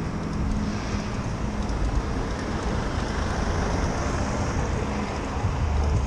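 Street traffic: motor vehicles running along a city street, a steady road noise with a low engine hum underneath.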